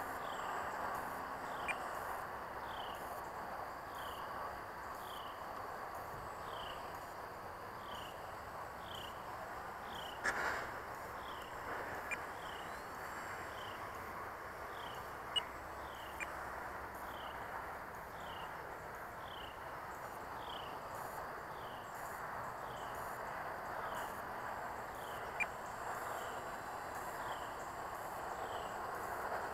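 An insect chirping steadily outdoors at dusk: short, high chirps that slide down in pitch, about one and a half a second. Under it is a steady hiss, with a few faint clicks.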